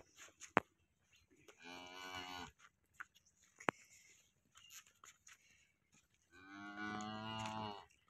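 Holstein Friesian cross cattle mooing twice: a short moo about a second and a half in, then a longer, louder moo near the end. A few sharp clicks fall between the calls.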